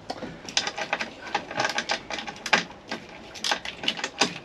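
Socket ratchet clicking in irregular bursts, with metal and plastic parts rattling, as a bolt on a truck's steering column is worked loose.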